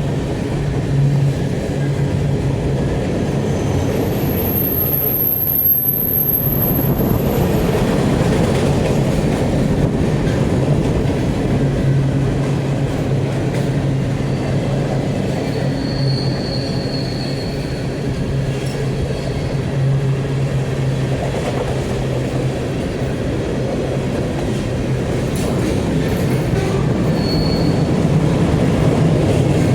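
Freight cars of a BNSF manifest train rolling past on the rails in a steady rumble. Brief high-pitched wheel squeals come several times: one about five seconds in, and shorter ones later on.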